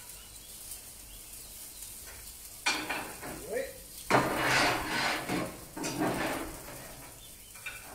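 Food sizzling on the hot cast-iron plate of a gas grill: a low hiss at first, then loud bursts of sizzling and scraping from about three seconds in, lasting some four seconds.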